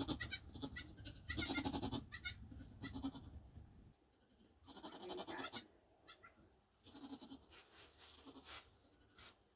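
Nigerian Dwarf goats bleating: about five short calls with pauses between them, right after a kidding.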